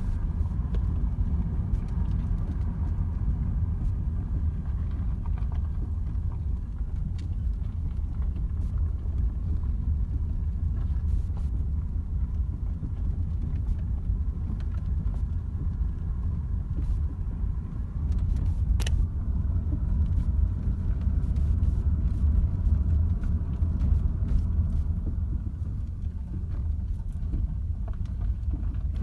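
Car driving with a steady low rumble and scattered dull knocks from the suspension, a knock that appears only once the car is warmed up and not when it is cold. One sharper click comes about two-thirds of the way through.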